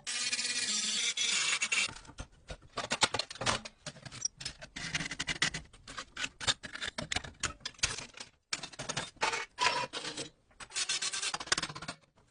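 Hand scraping and rubbing on the parts of an old cash register: about two seconds of steady scrubbing, then quick short strokes mixed with sharp clicks and knocks.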